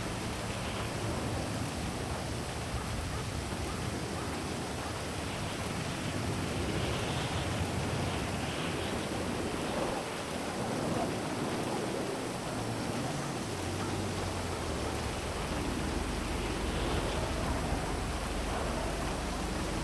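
Heavy rain falling steadily, a dense even hiss, with a low city rumble underneath.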